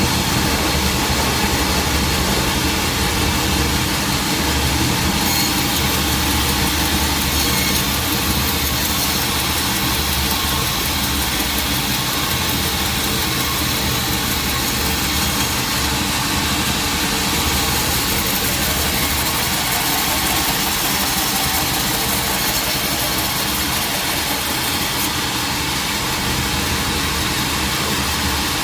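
Sawmill machinery running steadily: an engine hum under a high hiss. The hiss brightens about five seconds in and drops back near the end.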